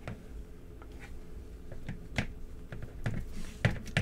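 Hands moving the plastic joints of a McFarlane DC Multiverse Superman action figure: a few sharp plastic clicks and taps, one about halfway through and several close together near the end.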